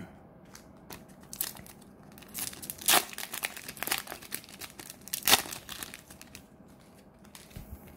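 Trading card booster pack wrapper being torn open and crinkled by hand: irregular crackling, with two louder tears about three and five seconds in.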